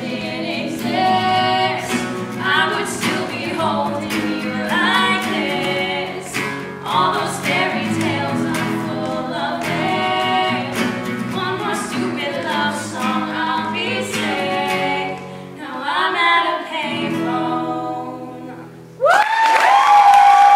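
Several voices singing in harmony over a steady instrumental backing, until the song stops about nineteen seconds in. An audience then bursts into loud cheering.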